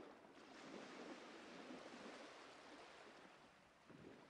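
Near silence: faint lapping of small waves on a shingle beach.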